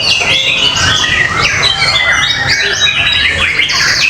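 Several caged contest songbirds singing at once, with fast overlapping chirps, whistles and rasping notes packed densely together, full of mimicked calls (isian).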